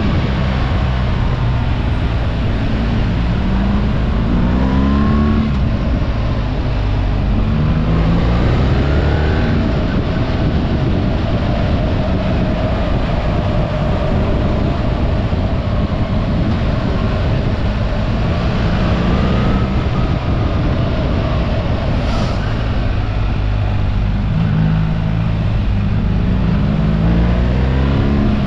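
BMW R 1300 GS boxer-twin engine running under way, its pitch climbing several times as it accelerates through the gears, over a steady rush of wind and road noise.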